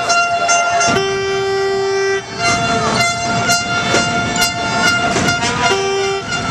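Fans' horns blowing in a crowded sports hall: several long, steady held notes overlapping, one lower note sounding about a second in and again near the end, over crowd noise. In the second half sharp knocks come about twice a second.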